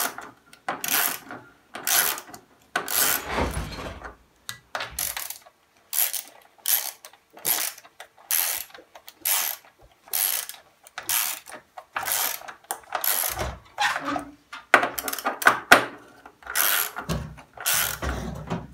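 Ratchet socket wrench clicking in repeated strokes, about one a second, as it tightens the bolts holding a washing machine's concrete counterweight, with a few dull knocks between strokes.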